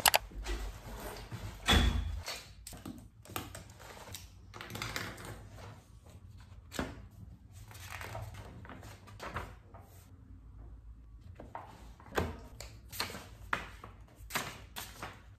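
Paper and a workbook handled on a desk: irregular rustles, light taps and knocks, with one louder knock about two seconds in and pages being turned near the end.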